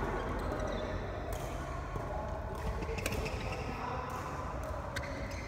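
Badminton shuttlecock struck back and forth with rackets in a doubles rally: about three sharp hits, one every couple of seconds, in an echoing hall.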